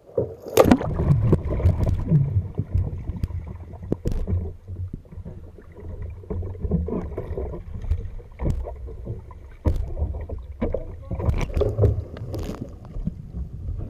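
Water splashing and sloshing around a kayak, starting with a sudden loud splash about half a second in, then a rumbling wash of water with scattered splashes and knocks against the boat.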